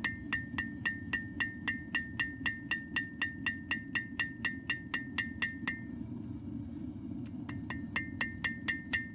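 Two-pound blacksmith's hammer striking hot mild steel on an anvil in a fast, even rhythm of about four to five blows a second, each blow ringing brightly; the ring dulls for a moment a little past halfway. A steady low rush runs underneath.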